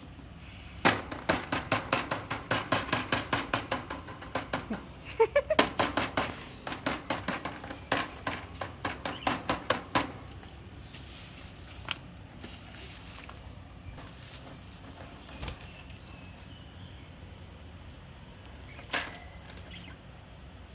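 Budgerigar flapping its wings, rapid even wing beats in two runs of several seconds each, followed by a few isolated taps and a soft thump.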